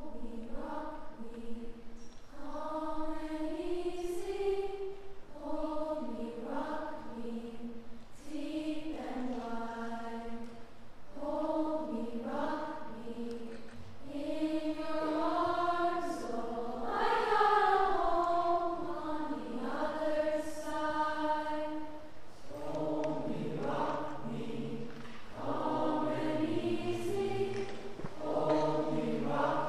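Large high school choir singing in short phrases of a second or two; deeper voices join about two-thirds of the way through.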